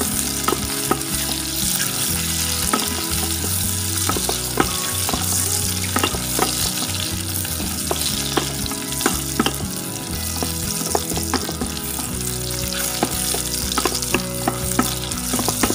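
Shiitake mushrooms, shallots and garlic sizzling in hot oil as they are stir-fried, with a steady hiss and frequent sharp clicks of the spatula against the pan.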